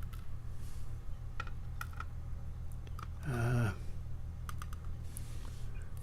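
Small, light clicks and taps of metal tools against lock parts as a padlock is disassembled and its pins are handled, scattered irregularly. There is a short low falling hum from a person about three seconds in, over a steady low electrical hum.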